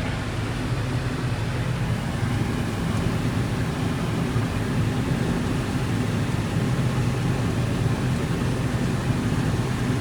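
Combine harvester engine running steadily at working speed while the machine unloads its full grain tank into a trailer: a continuous mechanical hum with a low engine note.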